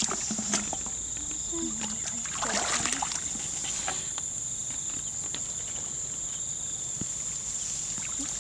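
A steady, high-pitched insect drone from the field, with a few small splashes of hands groping in shallow muddy water, the largest about two and a half seconds in.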